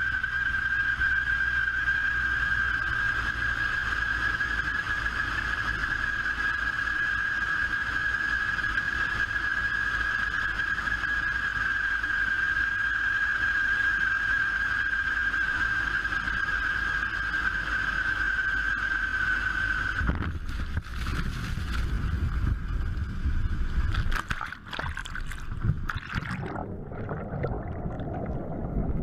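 Twin propeller engines of a small plane running with a steady high drone as it flies low over a river. About 20 seconds in, the plane hits the water: several seconds of crashing and splashing, then a muffled, gurgling sound as the camera goes under.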